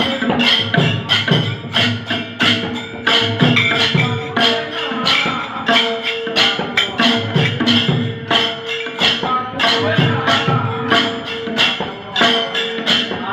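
Instrumental passage of a devotional bhajan with no singing: drums and hand percussion keep a fast, steady rhythm over a held melodic tone. Low drum strokes fall in pitch, typical of tabla.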